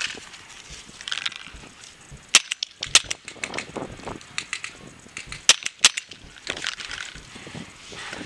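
Paintball markers firing: several sharp single pops scattered through, the loudest pair close together around the middle.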